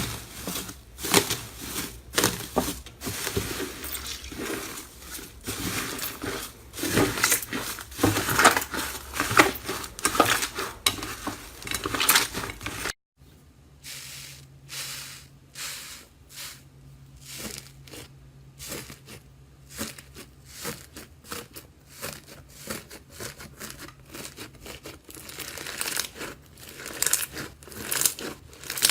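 Close-up crackling and crunching of slime being squeezed, pressed and pulled apart, dense and loud at first. About thirteen seconds in, the sound cuts to a quieter stretch of scattered crisp pops and clicks over a faint low hum.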